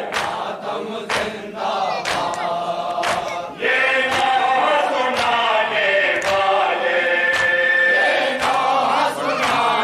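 A group of men doing matam, beating their chests in unison about once every three quarters of a second while chanting. About three and a half seconds in, a man's voice singing a nauha comes in loud over the strokes, holding long notes.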